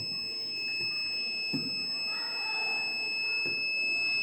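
Arduino flood-alert buzzer sounding one continuous high-pitched tone: the alarm set off by water reaching the water level sensor.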